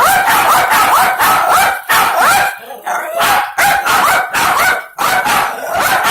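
Little dog barking excitedly and without pause, rapid sharp yaps about two or three a second, at a solar hummingbird ornament it wants to attack.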